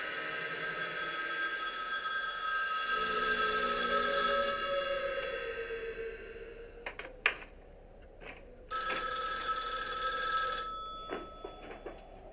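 A telephone's bell ringing: already sounding at the start, then two louder rings of about two seconds each, roughly six seconds apart, each dying away after. A few faint knocks fall in the quiet between.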